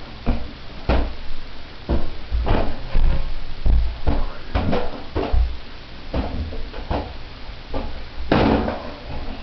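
Irregular hollow thumps and knocks, one or two a second, as a big rubber balloon is batted around with a back scratcher; the loudest comes near the end.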